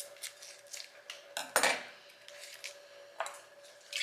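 Clinks and knocks of a drinking glass and kitchen things being handled while a drink is mixed, with one louder noisy burst about a second and a half in.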